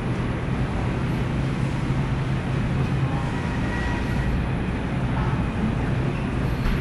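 Steady low hum and rumble of supermarket background noise, with a couple of faint brief tones about midway.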